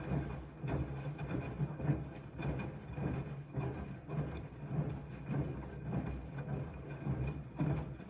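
Siemens iQ 300 front-loading washing machine in its wash cycle: the drum turning, with laundry and soapy water sloshing and tumbling in repeated surges.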